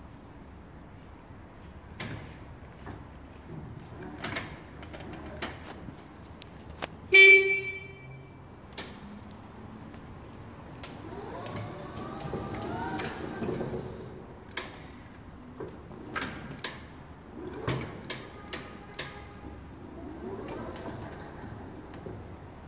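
Horn of a battery-powered stacker sounding one short beep, the loudest sound here. Sharp clicks and knocks from the machine being handled come throughout.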